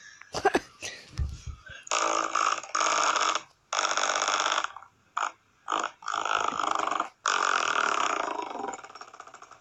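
Spinning blades of a desk fan striking a hand pushed into it, giving a run of rasping, buzzing bursts, about seven of them, the longest near the end, after a few low thumps.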